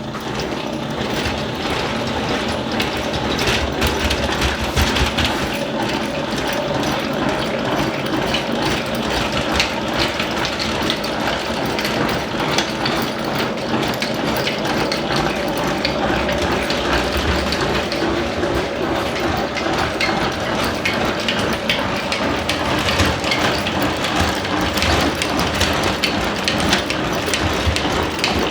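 Hand-cranked honey extractor spinning frames of honeycomb, its gears giving a steady, rapid clicking whir.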